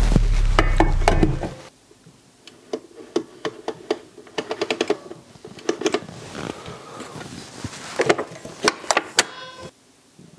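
Background music that stops about a second and a half in, followed by a run of clicks and knocks as a stainless steel bowl is seated on a Kenwood Chef XL Titanium stand mixer and the mixer head is lowered and locked into place. The sharpest knocks come near the end.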